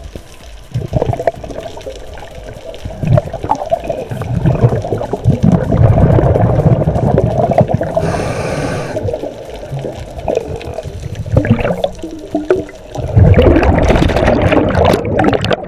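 Muffled underwater rushing and bubbling picked up by a head-mounted camera as the swimmer moves through the water. About 13 seconds in it swells into a loud rush of bubbles and churning water as the camera comes up toward the surface.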